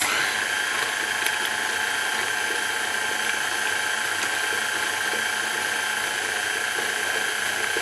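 KitchenAid Artisan stand mixer running at a steady speed, its flat beater mixing egg into creamed butter and sugar cake batter in a stainless steel bowl; an even motor hum with a steady high whine.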